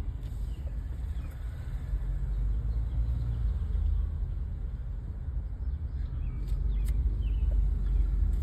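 Low, steady rumble of a car heard from inside the cabin.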